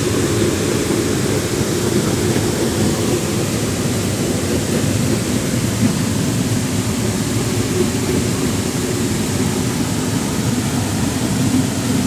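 Loud, steady rush of a waterfall's falling water, deep and even, with no breaks.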